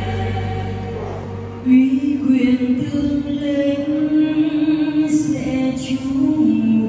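Liturgical singing through a church's loudspeaker system in a reverberant nave. A held choral chord fades out about a second and a half in. Then a single loud voice chants on steady, held notes.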